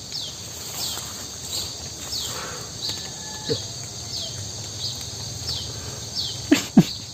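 Night-time insect chorus: a steady high buzz with a short, falling chirp repeating about one and a half times a second.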